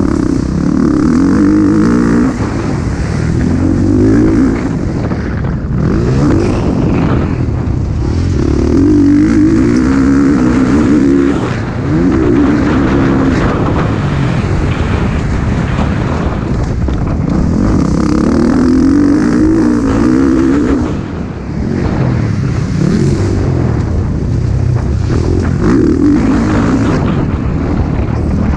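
MX1-class motocross bike engine racing, revving up and dropping back again and again as the rider opens and closes the throttle. Heard up close on the bike, over a steady rushing hiss.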